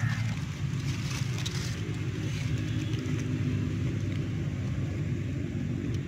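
Steady low rumble, with aluminium foil crinkling and tearing during the first second and a half as hands pull foil-baked fish apart.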